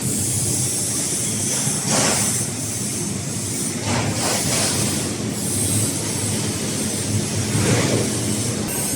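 Factory machinery running in a metal-parts plant: a steady low hum under a bright metallic hiss, with brief louder surges about two, four and eight seconds in.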